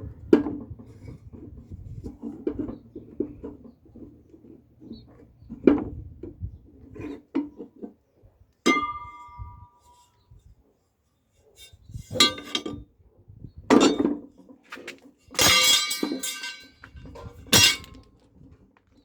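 Metal parts being handled: scattered clinks and knocks, one strike about nine seconds in that rings on for about a second, and a burst of rattling clatter near the end followed by one more sharp knock.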